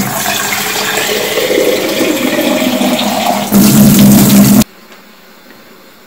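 Kitchen tap running, with water splashing into and pouring out of a glass vase being rinsed in the sink. It gets louder for about a second near the four-second mark, then cuts off suddenly.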